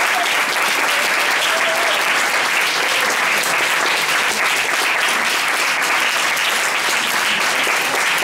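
Audience applauding steadily: dense, continuous hand-clapping.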